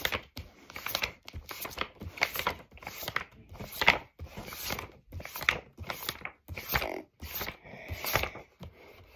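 Pages of a picture book being turned one after another: a quick run of short paper rustles and flaps, two or three a second.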